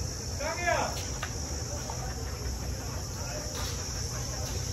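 Steady high-pitched insect chirring, with a man's short call about half a second in.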